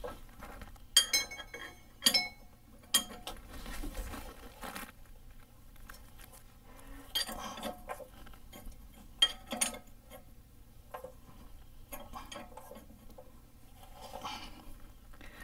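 Irregular sharp metal clinks of a wrench working the screw of a harmonic balancer puller on the crank pulley. The clinks come in clusters, the sharpest a second or two in and again around eight to ten seconds in.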